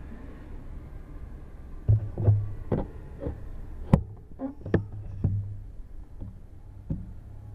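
Irregular knocks and clicks from a stopped bicycle and its mounted camera being jostled, about eight of them, the sharpest about four seconds in, over a steady low hum.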